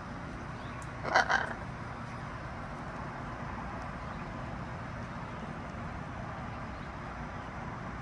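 Blue-and-gold macaw giving a short, harsh double squawk about a second in, over a steady outdoor background hum.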